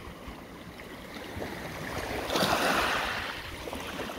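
Small sea waves washing in over a pebble beach. One surge of surf builds about two seconds in, peaks, and falls away again.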